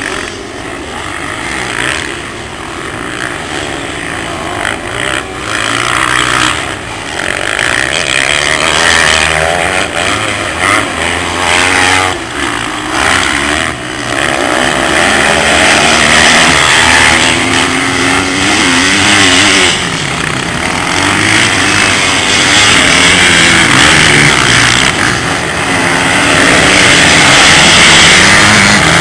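A pack of motocross dirt bikes racing, several engines revving up and down over one another, growing louder over the stretch.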